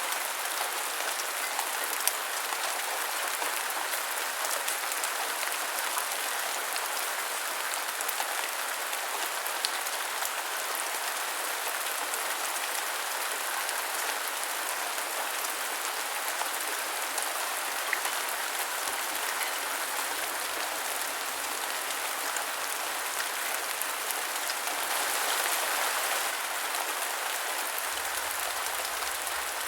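Steady rain falling, an even hiss with scattered drop ticks and a brief swell near the end.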